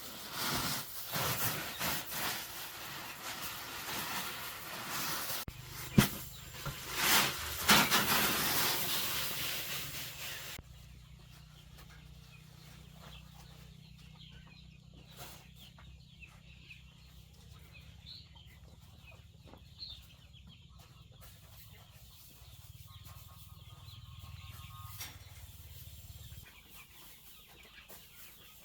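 Domestic chickens clucking. For about the first ten seconds a louder noise with a few sharp knocks covers them; after that it drops and only faint clucks and clicks remain.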